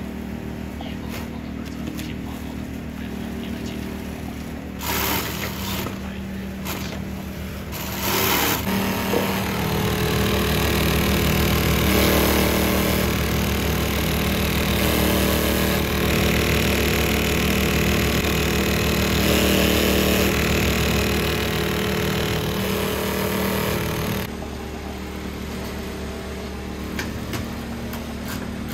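Leather workshop machinery running: a steady motor hum, then from about eight seconds in a louder, even run of a bench leather-working machine with a hiss over it as a strap is fed through, dropping back to the quieter hum about twenty-four seconds in.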